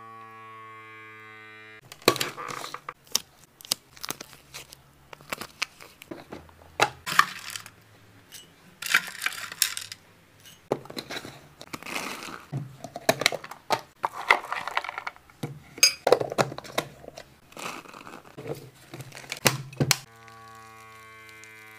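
Plastic snack packaging handled by hand, crinkling and tearing in irregular bursts with sharp clicks and taps. A steady droning tone plays for about two seconds at the start and again near the end.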